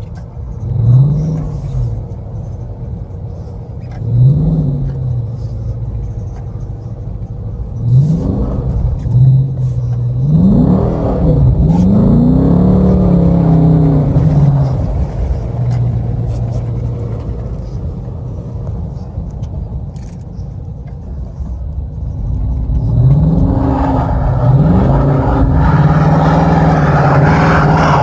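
Car engine in race mode revving up and down again and again, the revs rising and dropping in quick swells with steadier stretches between, as the car is thrown sideways doing donuts on snow.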